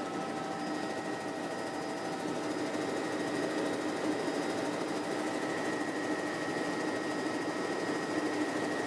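Helicopter in flight heard from inside the cabin: steady engine and rotor noise with a high, steady whine.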